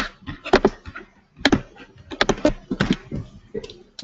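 A quick, irregular run of sharp clicks and knocks from a computer keyboard and mouse as an image is copied and pasted into a drawing program.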